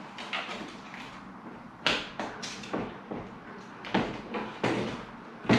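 A series of sharp knocks and clacks at irregular intervals, about eight in all, from plastic window-fitting packers and UPVC frame parts being handled and knocked about.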